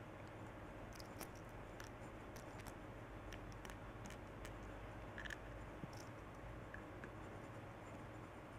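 Faint, scattered light clicks and taps of tiny seashells being handled and pressed into place on a shell-covered frame, over a low steady hum.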